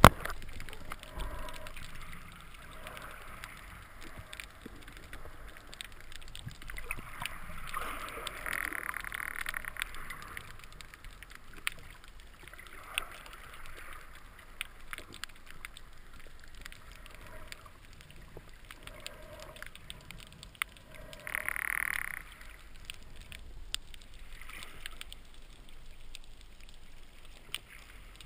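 A band-powered speargun fires underwater with one sharp, loud clack at the very start. After it comes the muffled rush and gurgle of water, with soft swells about eight to ten seconds in and a short louder burst a little past twenty seconds.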